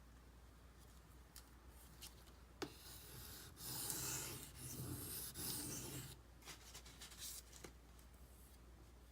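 A knife blade scraped across a whetstone in a few quick sharpening strokes for about three and a half seconds, after a sharp click, with small taps and clicks from handling the blade afterwards.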